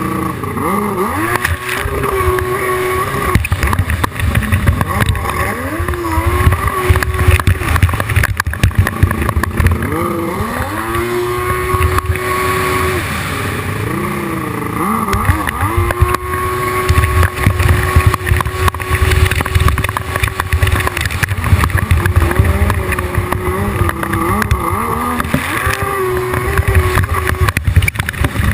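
Hydrospace 1100 racing jet ski engine running hard. Its pitch drops and climbs again and again as the throttle is eased and opened, and holds steady at high revs for a few seconds at a time, with a heavy low rumble underneath.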